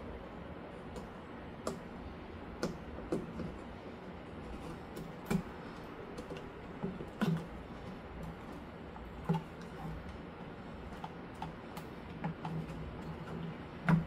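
Irregular light clicks and taps of computer parts being handled and fitted during a PC build, about ten in all, the loudest near the end, over a low steady hum.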